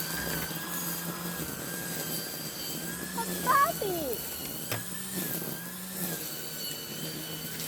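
Steady electric motor hum with a high whine running through it, and a brief wavering high-pitched sound about three and a half seconds in.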